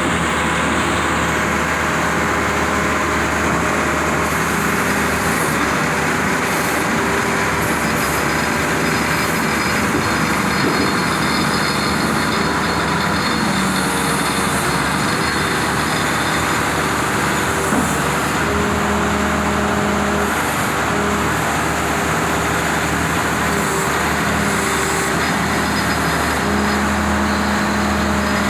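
Cummins diesel of a Badger 670 mobile excavator running steadily under work. In the second half a steady tone comes and goes several times.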